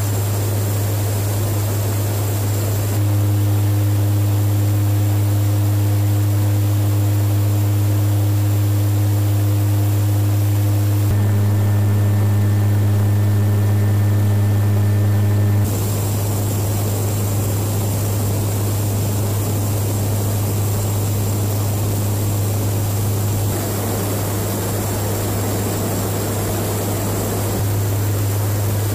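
Steady drone of a KC-130J Hercules tanker's turboprops as heard inside the cabin: a deep, constant propeller hum over engine and airflow hiss. The hum changes slightly in tone several times.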